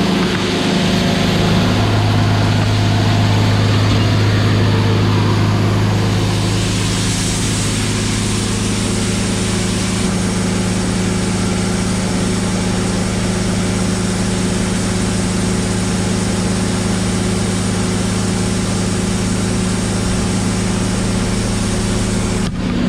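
Large farm machinery running steadily: a constant low engine hum with a hiss of machinery over it, the hiss shifting higher about six seconds in.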